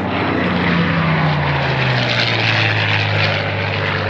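Bell P-63 Kingcobra's Allison V-12 piston engine passing by on a low pass. Its engine note drops in pitch as it goes past, over a loud propeller rush.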